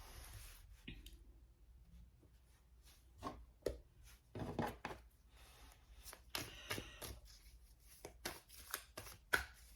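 A deck of tarot cards being handled and shuffled by hand: soft irregular card snaps and rustles, coming quicker and denser over the last two seconds.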